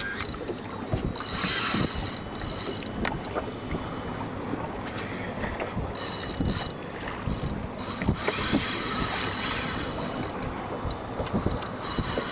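Fishing reel being worked during the fight with a hooked amberjack, its mechanism clicking and whirring, over wind and water noise on a boat with rushes of hiss.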